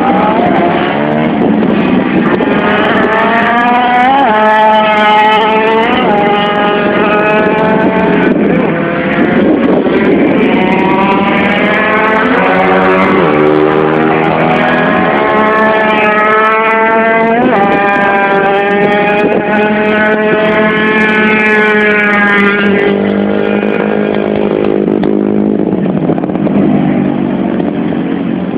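Small racing engines revving hard, several at once, their pitch climbing and dropping again and again as the vehicles accelerate and brake around the course, with sharp rising runs about four, twelve and sixteen seconds in.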